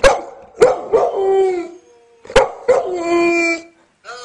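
Golden retriever howling in two bouts: each begins with short sharp barks and draws out into a long, held howl, with a brief pause about two seconds in between them.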